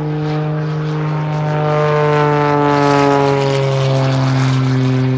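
Aerobatic plane's engine running as it flies a smoke-trailing loop, its pitch sliding lower over a few seconds and loudest about halfway through.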